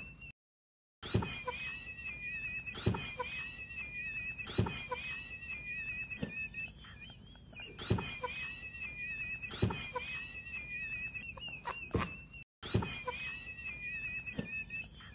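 A man's high-pitched wheezing laugh: a thin, wavering, whistle-like squeal held almost without break, broken by a sharp gasp about every second and a half to two seconds. The sound cuts out completely twice for a moment.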